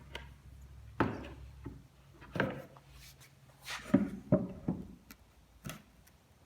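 Melamine cabinet panels being handled and fitted together: about half a dozen irregular sharp knocks and clatters of board on board, the loudest about four seconds in.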